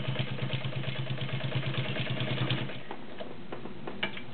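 Dressmaker Model 90 all-metal zigzag sewing machine running, its motor humming under a fast, even stitching rhythm as it sews through heavy material. It stops about two and a half seconds in, followed by a few light clicks.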